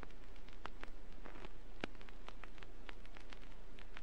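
Vinyl record surface noise picked up by a turntable stylus: irregular crackles and pops, several a second, over a steady hiss, with a low hum underneath. No music is playing.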